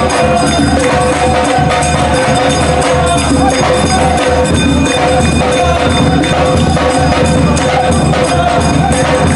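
Loud music with dense percussion that includes tambourine-like jingles, over two steady held notes that run almost without a break.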